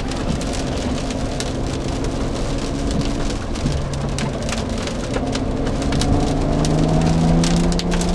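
Raindrops hitting the windshield of a 2007 BMW 335i, heard inside the cabin as many small ticks over a steady wash of noise. Under it the car's twin-turbo inline-six hums, its pitch rising near the end as the car accelerates.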